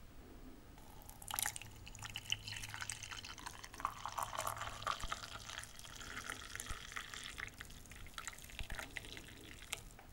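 Coffee poured from a glass coffee-maker carafe into a mug: a steady splashing pour that starts about a second in and stops just before the end.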